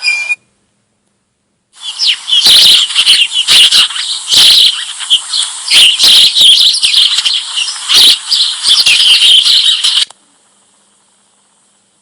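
A recording of Australian wild birds: a dense stream of rapid, high-pitched chirps and chattering calls. It starts about two seconds in after a short silence and cuts off abruptly near the end.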